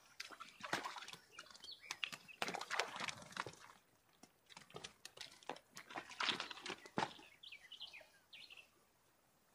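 A freshly landed grayling flapping and thrashing in the bankside grass, coming in fits and starts of slaps and rustling that die away near the end.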